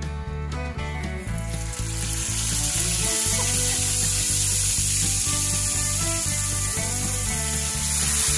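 Butterflied milkfish (bangus) sizzling in hot oil in a frying pan. The sizzle starts about a second in as the fish goes into the pan and grows loud and steady. Background music with a steady beat plays throughout.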